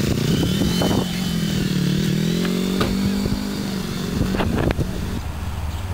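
Small sport motorcycle's engine pulling away at low revs. Its pitch rises over the first second, then holds steady as the bike rides off, and the sound drops away near the end.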